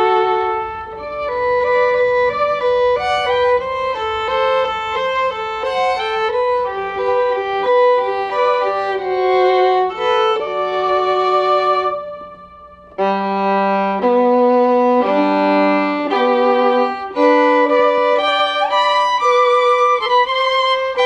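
Violin music: a melody of held and quicker notes. It dips briefly about two-thirds of the way through, then comes back in.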